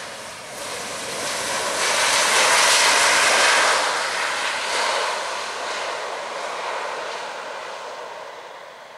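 Boeing 737-900ER's CFM56 jet engines on the landing roll, a loud rushing roar that swells to a peak about two to three seconds in and then fades as the airliner rolls away down the runway.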